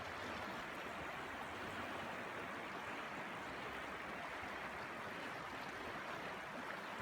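River water flowing, a steady even rush of current.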